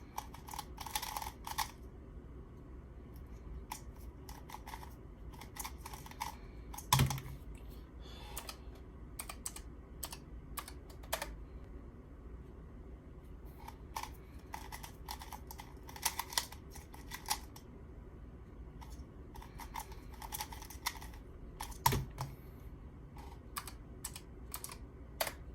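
Plastic speed cube being turned by hand: quick runs of light clicking as the layers snap round, with two louder knocks, about a third of the way in and near the end.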